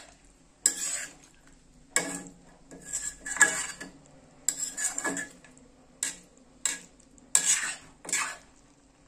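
A metal spoon stirring and scraping through a thick chicken offal curry in a cooking pan, in about a dozen irregular strokes with short pauses between them. The strokes stop shortly before the end.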